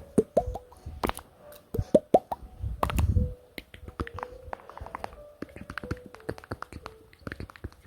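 Deliberately gross mouth sounds: a rapid string of wet clicks, lip smacks and tongue pops, many with a short rising pitch like plops, and a low rumbling blow about three seconds in.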